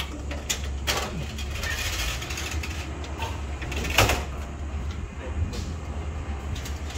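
Scattered knocks and clatter of construction work over a steady low rumble, with the loudest knock about four seconds in.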